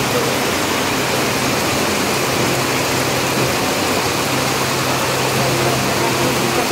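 Floodwater rushing loudly and steadily, with a steady low hum underneath that drops out briefly midway.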